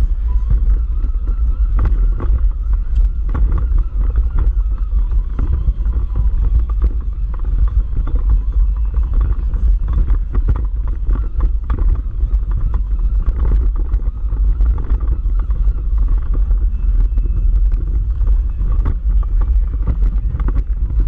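Off-road vehicle driving slowly over a rocky dirt track: a steady low rumble with frequent knocks and rattles as it jolts over rocks.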